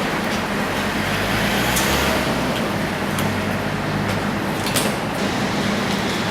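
Steady motor-vehicle noise, an engine running with road noise around it, with a few short sharp clicks.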